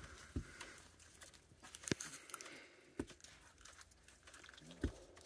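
Striped skunk stomping its front feet on a wooden deck: four thumps, one to two seconds apart, a skunk's warning display.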